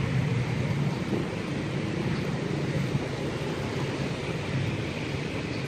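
A steady low rumble of outdoor background noise at an even level.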